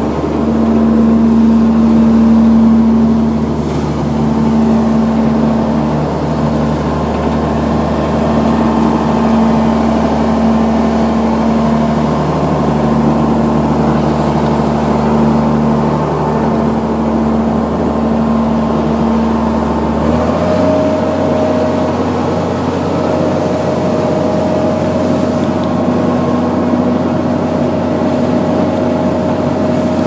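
Scania diesel engine of a Moxy MT30 concrete mixer truck running steadily at a standstill. About twenty seconds in, its note changes: the deep hum drops away and a higher steady tone comes in.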